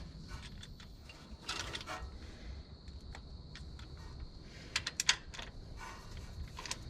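Scattered light metallic clicks and clinks of hand tools working engine bolts, with a quick run of sharp clicks about five seconds in.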